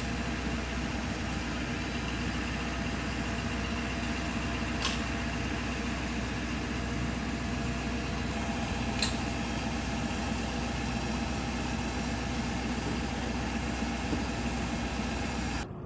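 Steady drone of heavy truck engines idling, with a strong low hum. Two short sharp clicks come about five and nine seconds in, and the drone drops off abruptly near the end.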